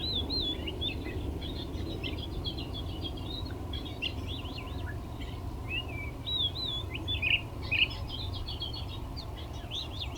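Small birds chirping and twittering almost without a break, many short overlapping notes and wavy whistles, over a steady low background rumble.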